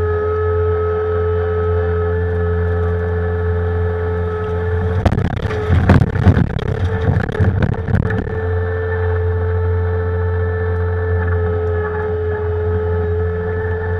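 Engine of a compact Bobcat machine running steadily with a low hum and a steady whine. From about five seconds in, for roughly three seconds, loud scraping and clattering as the bucket works in loose shale.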